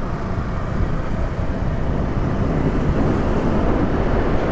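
Steady wind and road noise from a moving motorcycle: air rushing over the rider's microphone with the engine and tyres underneath.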